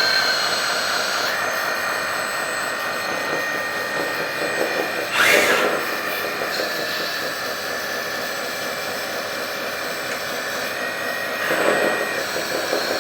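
1/14 RC hydraulic bulldozer running, with a steady mechanical whine from its onboard hydraulic pump. There are two short louder surges, about five seconds in and again near the end.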